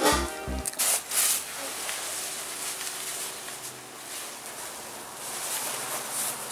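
Rustling of a sheer tulle dress as it is pulled down over a toddler, an even hissing swish with slow swells. A short stretch of background music ends about half a second in.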